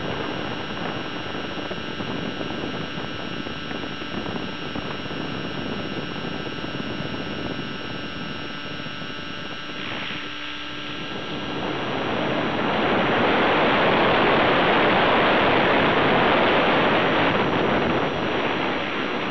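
Onboard sound of an Align 600 R/C helicopter in flight: a steady motor and rotor whine with several held tones. About twelve seconds in, a loud rush of wind on the microphone rises and drowns it out for several seconds, then eases off near the end.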